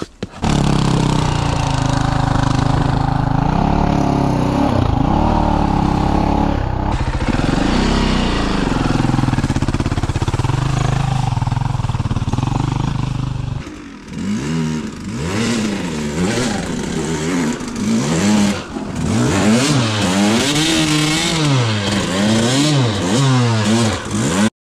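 Dirt bike engine running steadily. From about 14 seconds in, it revs up and down over and over, roughly once a second, as the bike rides a rough muddy trail.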